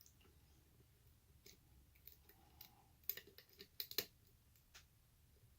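Faint metallic clicks and scrapes of a lock pick working the pins of a Yale lock under tension, as the picker feels for the next pin to set. A cluster of sharper clicks comes about three to four seconds in.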